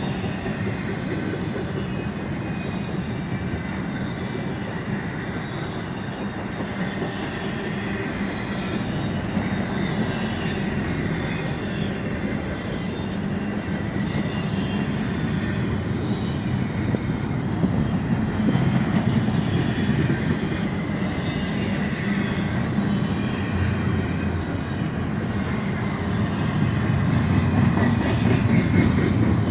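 CSX intermodal freight train rolling past: a steady rumble of steel wheels on rail as double-stack container cars and trailer flatcars go by, growing louder near the end.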